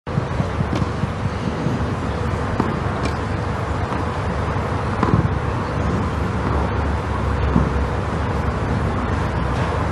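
Steady outdoor courtside ambience picked up by the broadcast microphones: a low rumble with hiss, cutting in suddenly at the start, with a few faint ticks.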